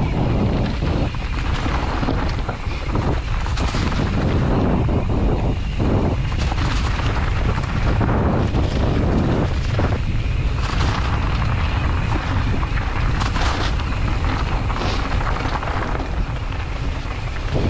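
Mountain bike riding down a dirt trail: wind buffeting the microphone and a constant low rumble, with scattered knocks and rattles from bumps in the trail.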